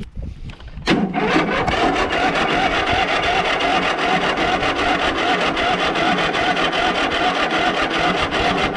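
Lawn mower engine cranked by its electric starter without firing: a steady rhythmic chug with the starter's whine, starting about a second in and going on for several seconds. The battery is running down and needs a jump.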